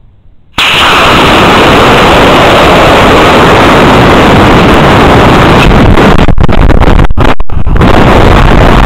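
Model rocket's C6-3 black-powder motor igniting at liftoff, heard through the rocket's onboard camera microphone. It starts suddenly about half a second in as a loud, distorted rushing noise that carries on steadily through the climb as wind rushes over the microphone, with a few brief dropouts near the end.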